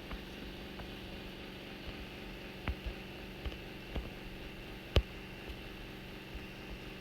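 Steady low hum with a hiss, broken by a few short sharp clicks or taps; the loudest comes about five seconds in.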